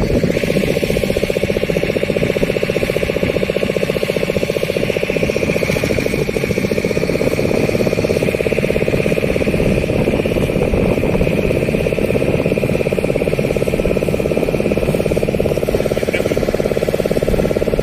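Engine running steadily at an even speed, with a fast, regular firing beat.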